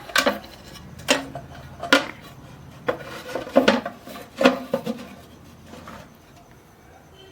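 Hard parts being handled and set down, giving sharp clinks and knocks about once a second, several with a short ring.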